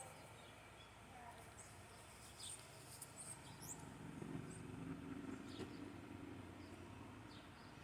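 Faint outdoor ambience: a few short, high bird chirps, with a low, faint hum coming in about four seconds in.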